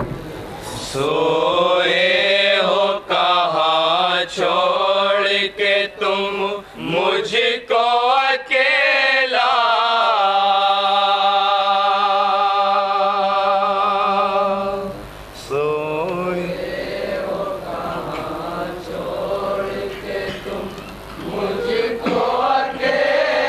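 A group of men chanting a noha, an Urdu lament for the martyrs of Karbala, into a microphone, a lead voice carrying the melody with others joining. About ten seconds in they hold one long note for several seconds before the line goes on.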